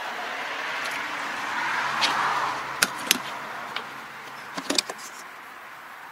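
Latches of a red KTC plastic toolbox clicking open and the lid lifting: two sharp clicks about three seconds in, then a quick cluster of clicks just before five seconds. Before them a rush of noise swells and fades, peaking about two seconds in.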